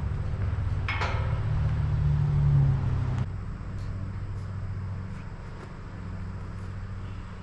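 An engine running at idle, revving up with a rising pitch about a second in and dropping back to idle after about three seconds, with a sharp knock as the revving starts.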